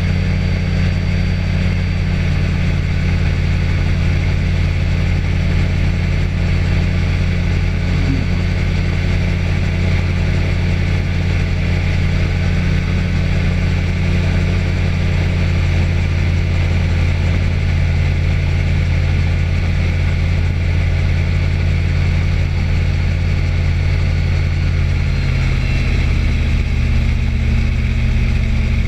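Light aircraft engine running steadily in flight, heard from on board with a steady rush of air over it. The engine note shifts slightly about 25 seconds in.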